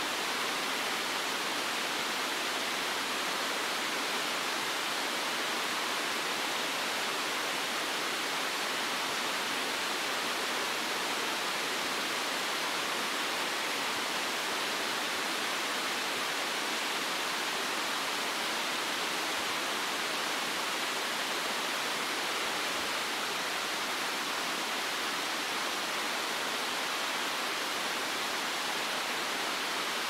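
Constant white noise used as a baby sleep aid: an even, steady hiss that does not change.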